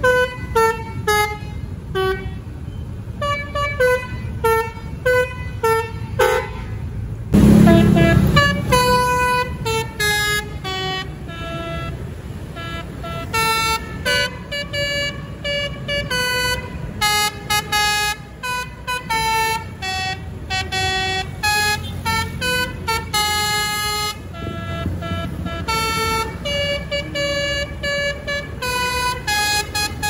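Bus's Basuri telolet horn playing a tune of quick tooting notes, one after another at changing pitches, over the low rumble of traffic and motorbikes. A louder, deeper blast comes about seven seconds in.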